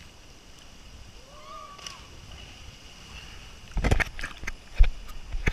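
Water splashing and sloshing close to the kayak as it is paddled, loudest in a cluster of strokes about two-thirds of the way through, with a couple of sharp knocks after it. A faint distant call rises and falls about a second and a half in.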